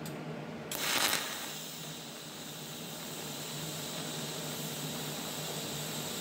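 TIG welding arc striking about a second in with a brief loud crackle, then burning with a steady hiss and a thin high whine as it fills a small rust hole in the truck's sheet-metal panel.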